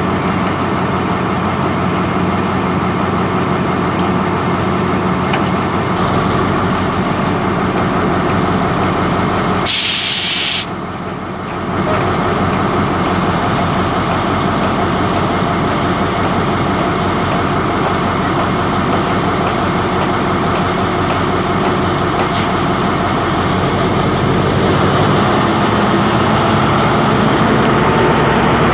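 Diesel-electric locomotive idling steadily, with a low engine note throughout. About ten seconds in, a loud hiss of compressed air from the train's air brake system lasts just under a second and cuts off sharply.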